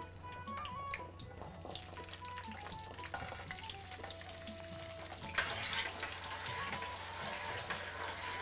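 Shallots dropped into hot sesame oil in a kadai and sizzling as they fry. The sizzle grows noticeably louder about five seconds in, and they are stirred near the end.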